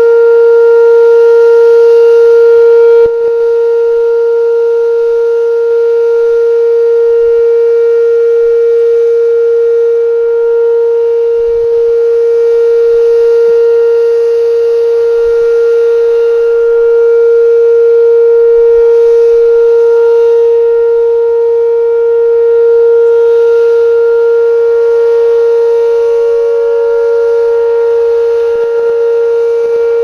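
Whelen WPS-2805 electronic outdoor tornado-warning siren sounding a loud, steady single-pitch tone for a test. Its loudness dips slightly about three seconds in and then wavers gently.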